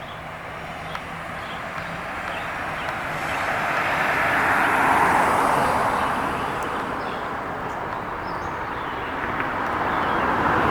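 Road traffic: a vehicle passes with tyre noise swelling to a peak about five seconds in and fading, and another approaches near the end.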